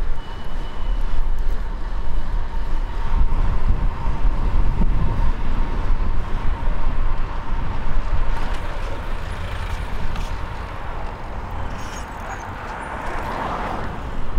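City street traffic going by, with wind rumbling on the microphone of a fixed-gear cyclist riding through it. A vehicle swells louder near the end.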